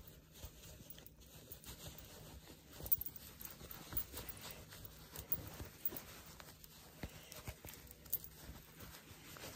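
Faint rustling and small irregular taps of cotton fabric and batting being handled and pulled right side out through a gap by hand.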